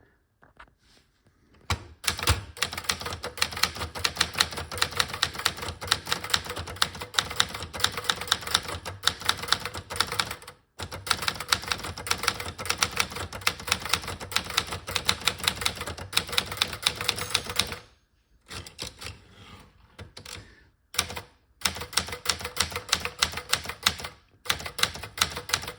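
Montgomery Ward Signature 440T typewriter being typed on in fast, steady runs of keystrokes. There is a brief break about ten seconds in and a longer lull with only scattered strokes from about eighteen to twenty-one seconds.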